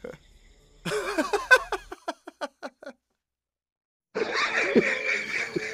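A person laughing: a burst about a second in that breaks into a run of short, quick 'ha' pulses trailing off. After a pause, a second, rougher burst comes near the end and stops abruptly.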